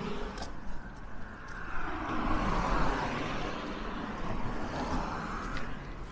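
A road vehicle driving past. Its tyre and engine noise swells to a peak about halfway through and then fades away.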